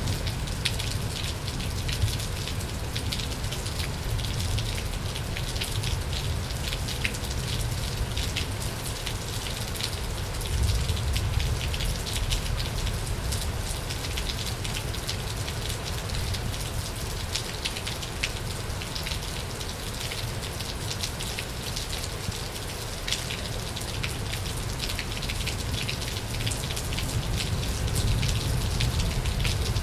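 Heavy, steady rain falling during a thunderstorm, individual drops ticking sharply over the constant wash of rainfall, with a low rumble underneath.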